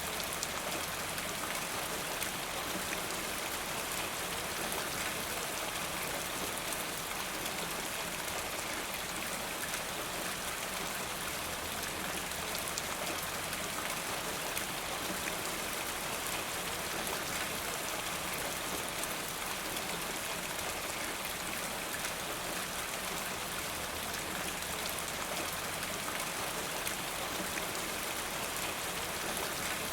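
Steady, constant rainfall: a dense even hiss of many raindrops falling on a surface, with fine individual drop patter and no change in intensity.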